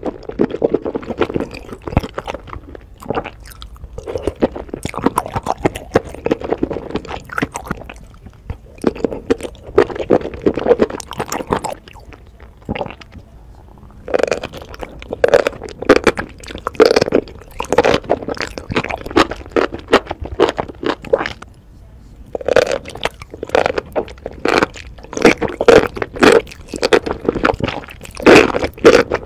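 Mouth sounds of a person eating saucy noodles and enoki mushrooms with chopsticks: wet chewing and squelching in irregular bursts, with a couple of short pauses.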